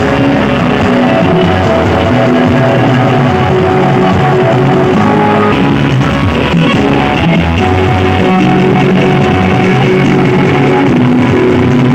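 Loud rock-style music with guitar, played at high volume through a small stack of miniature speaker cabinets (perforated-grille tops on horn-loaded bass boxes) during a sound-system contest test.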